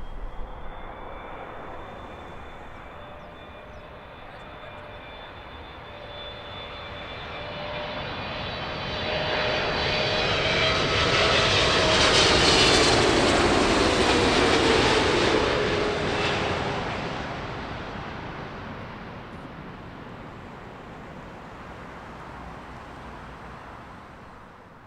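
Jet airliner passing low overhead on its landing approach. The engine noise and whine build up, are loudest around twelve to fifteen seconds in, then fade away, with the whining tones dropping in pitch as it goes by.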